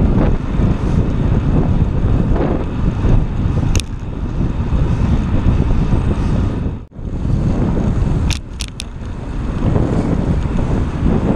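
Wind buffeting the microphone of a camera mounted on a moving bicycle, a loud, steady low rumble, with road traffic running underneath. A few short high squeaks cut through, one about four seconds in and three more a little after eight seconds.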